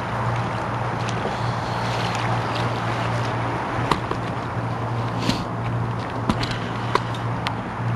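Rubbing and bumping of a handheld camera being moved against hair and clothing, with a few sharp clicks in the second half, over a steady low engine-like hum.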